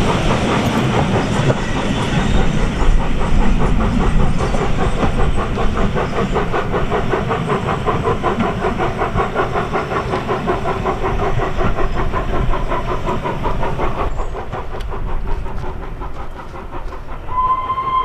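Steam-hauled passenger train pulling away, its wheels rumbling and clattering along the track with a fast steady beat, fading over the last few seconds as it recedes. Near the end a steam whistle sounds one steady note.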